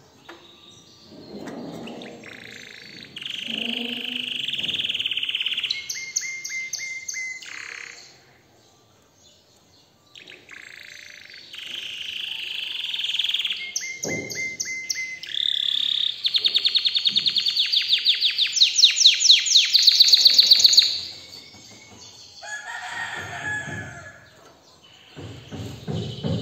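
Domestic canary singing long phrases of fast trills and rapidly repeated notes, with a gap of about two seconds after roughly eight seconds. The song then builds to its loudest, fastest rattling trill a little past halfway before softer phrases.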